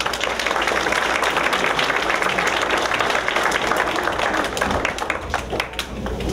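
Audience applauding: a dense wash of clapping that thins into a few scattered claps near the end.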